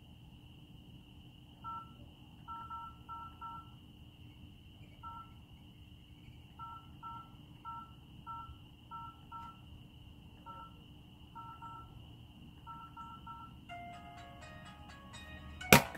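Keypad tones of an LG 442BG flip phone: short two-tone dialling beeps, some single and some in quick runs, as its keys are pressed. About a second before the end the phone lands on concrete with a sharp, loud clatter.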